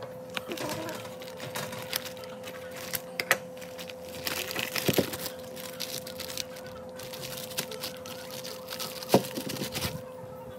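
Plastic bag of frozen pupusas crinkling and rustling as it is handled and a pupusa is pulled out, with a few sharper clicks and knocks along the way. A steady faint hum runs underneath.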